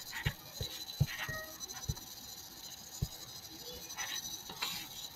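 A few separate computer mouse clicks over a faint steady hiss.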